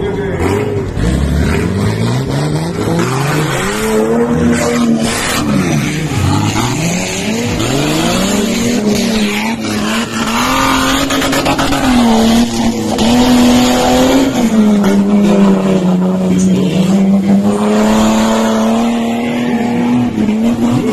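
Modified off-road 4x4's engine revving hard as it churns through a mud pit, its pitch climbing and dropping again and again, then holding a steadier high note for the last several seconds.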